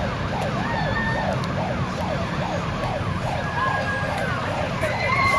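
Several fire engine sirens wailing together in quick overlapping up-and-down sweeps, over the low rumble of the passing trucks. A steady held tone joins near the end.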